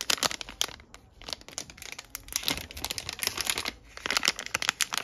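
Metallised anti-static plastic bag crinkling in irregular crackly spells as hands handle it and open it to get at the spot-welder circuit board inside.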